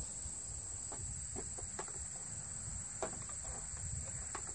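Crickets trilling steadily in a summer field, with a few faint knocks.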